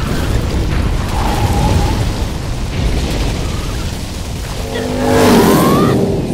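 Audio-drama action sound effects: a dense rumble of crashing, smashing rocks mixed with a motorcycle engine, under music. About five seconds in it swells, and a rising whine comes in.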